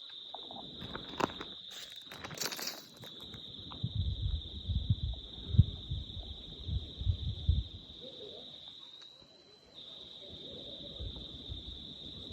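Steady high-pitched trill of a night insect chorus, cricket-like. Brushing rustles come about one to three seconds in, and a run of dull low thumps from about four to seven and a half seconds in.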